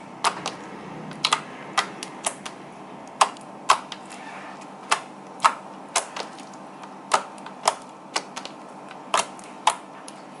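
Sharp, irregular clicks and pops, about two a second and sometimes in quick pairs, from fingers pressing and kneading a soft glue slime made with BB cream foundation.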